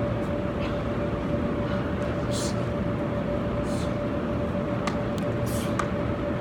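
Steady background rumble of a large indoor sports hall with a constant hum, and short hisses roughly every second and a half, plus a few faint clicks.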